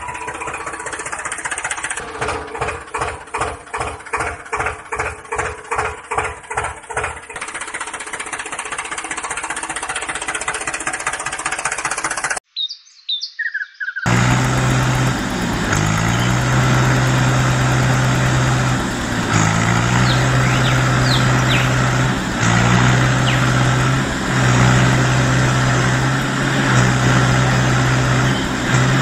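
Tractor engine sound: a rhythmic chugging about two beats a second for the first several seconds, settling into a steady run. After a short break about halfway, a louder steady engine drone that dips in pitch briefly every few seconds.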